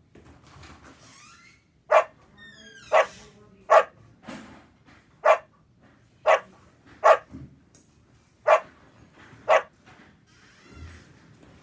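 A dog barking eight times, single sharp barks spaced about a second apart.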